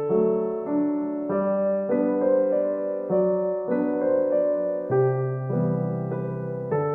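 Background music: a gentle piano or electric-piano tune with a bass line, new notes and chords about every half second.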